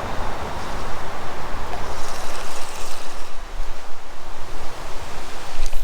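Steady rushing of creek water mixed with wind buffeting the microphone, with a short click near the end.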